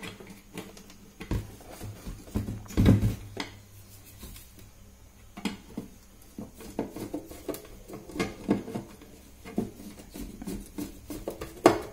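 Screwdriver and hands clicking and knocking against the finned metal housing of a floodlight while its screws and fittings are worked. The small knocks come irregularly, with a heavier thump about three seconds in.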